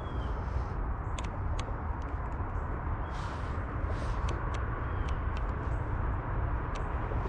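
Outdoor ambience of steady rushing noise, heaviest in the low end, with a few sharp clicks and a short chirp heard twice.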